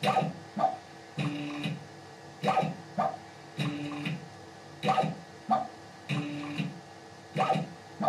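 CNC machine axis motors driving a digitizing touch probe through a repeating probing cycle, about every two and a half seconds: two sharp clicks about half a second apart, then a brief steady motor hum as the axis travels to the next point.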